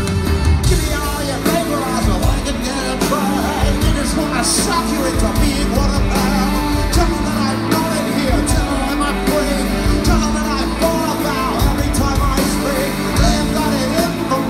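Rock band playing live, with a male lead singer over drums and bass guitar, heard from within the audience.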